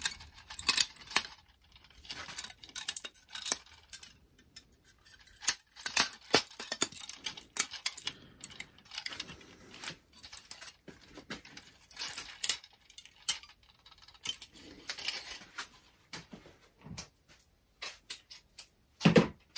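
Plastic parts of a Hasbro Transformers Authentics Optimus Prime figure clicking and clattering as it is handled, in irregular sharp clicks with short pauses between them. A louder knock comes near the end.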